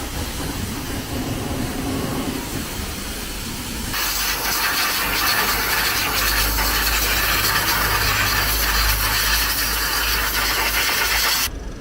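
Pressure washer spraying water over a freshly overhauled engine in its bay. The loud, steady hissing jet with a low pump hum starts abruptly about four seconds in and cuts off suddenly just before the end.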